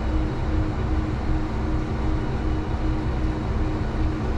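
Diesel railcar engine idling steadily with the train stationary, a low hum carrying a faint regular pulse about twice a second.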